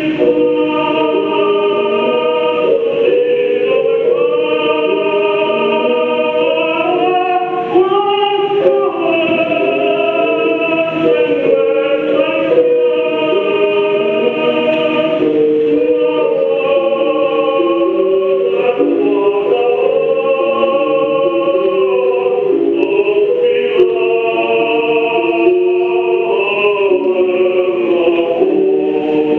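Choral music: several voices hold long, overlapping notes in harmony and move between chords in steps.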